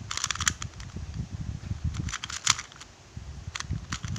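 2x2 Rubik's cube being turned fast in a speed solve: quick bursts of plastic clicking as the layers snap round, in three or four clusters with short pauses between.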